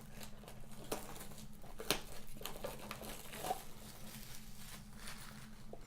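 Faint crinkling, rustling and small tearing sounds of a trading-card blaster box being opened and its wrapping handled, with scattered light clicks.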